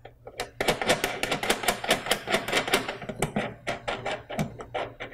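A new GeneralAire 990-52 solenoid valve being threaded by hand onto a brass fitting, its metal body clicking and rattling in a quick run of small knocks that thins out after about three seconds.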